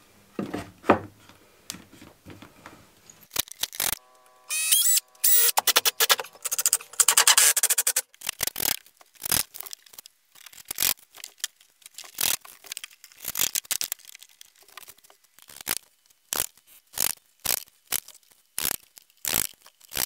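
Timber slats and boards being handled and set in place, giving many short knocks and clacks of wood on wood. From about four to eight seconds in there is a denser stretch of scraping noise.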